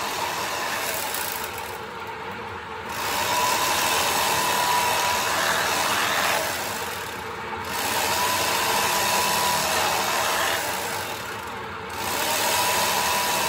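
Electric carving knife running in runs of a few seconds, with a steady whine and short pauses between them, as its blades saw through a cooked roast beef.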